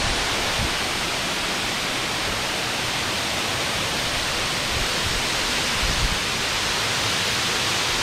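Steady rushing noise of an 85-metre waterfall, its water falling down a rock face into the plunge pool.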